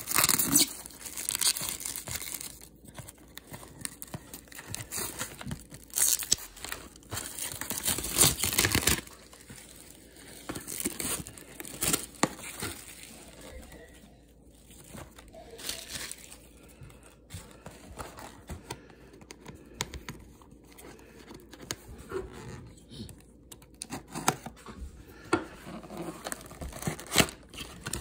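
Plastic shrink-wrap being ripped and crumpled off a sealed trading-card box, in loud crackling bursts through the first nine seconds or so. After that come quieter rustles and handling of the cardboard box, with a few sharper clicks near the end as it is opened.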